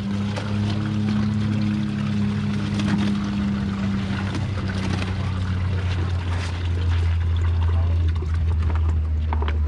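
Water pouring and dripping as bass are handled in a water-filled weigh-in tub and bag, with scattered small splashes, over a steady low hum.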